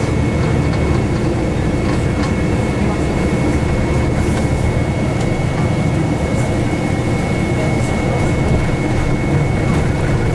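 Inside a city bus under way: a steady low rumble of engine and road noise, with a constant thin high whine above it and a few faint rattles.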